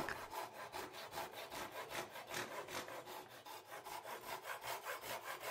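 Japanese Ryoba pull saw cutting through the end of a wooden turning, in quick even strokes several times a second.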